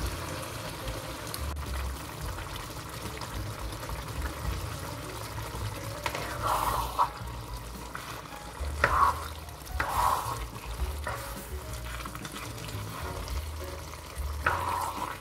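A spoon stirring a wet vegetable stew of broccoli, tomato and peppers in a non-stick pan, the stew sizzling steadily underneath, with a few louder strokes of the spoon through the pan.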